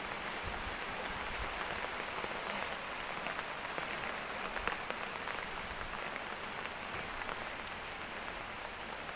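Heavy rain falling steadily: an even hiss of rain with scattered drop ticks.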